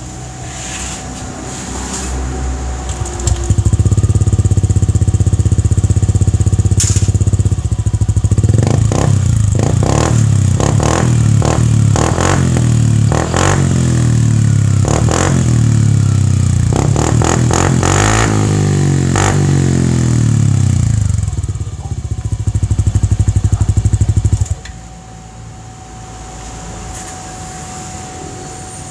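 Yamaha Aerox 155 scooter engine running through a JVT titanium V3 aftermarket exhaust for a sound check. It starts low, is held loud about three seconds in, and is revved up and down repeatedly for about twenty seconds. It drops back suddenly to a low idle near the end.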